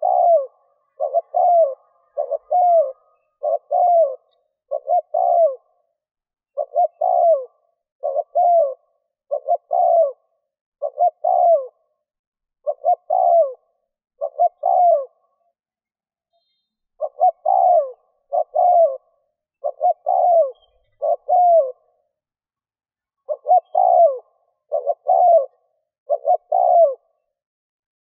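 Spotted dove cooing over and over, a steady run of short coos, each ending in a falling note, broken by two short pauses past the middle. This is the call that bird-keepers play to lure wild spotted doves.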